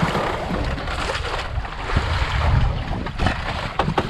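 Wind buffeting the microphone and sea water lapping against a wooden outrigger boat, with a couple of sharp knocks about three and four seconds in.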